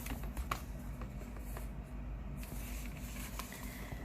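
A few light taps and short rustles as the pages and flaps of a thick cardboard board book are handled and turned, over a low steady hum.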